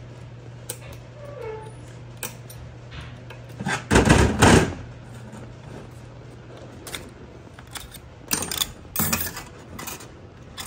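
Steel transmission parts clinking and scraping as a pick works a snap ring out of a clutch drum, with scattered light clicks and a louder metallic clatter about four seconds in. A steady low hum runs underneath.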